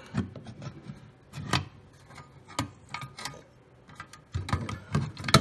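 Scattered clicks, knocks and rustles of a replacement blower motor and its wiring being handled and pushed into a sheet-metal fan-kit housing, with the loudest knock near the end.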